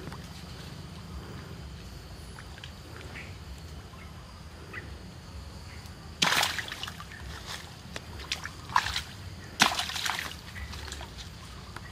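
Water sloshing and splashing in a shallow muddy stream as a wooden stick is worked into it: three sudden splashes, the first about halfway through and two more a few seconds later, the last the loudest, over a low steady rumble.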